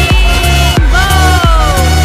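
Electronic dance music with a heavy bass and a steady beat, its synth lines sliding down in pitch about halfway through.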